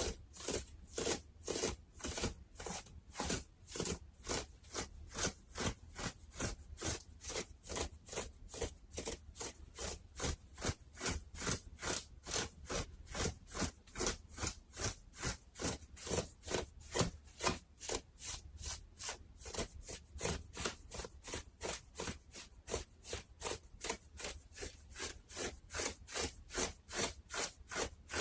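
Fabric of a JK-style school uniform being rubbed or scratched in even strokes, about three a second, each a short rasp, for ASMR.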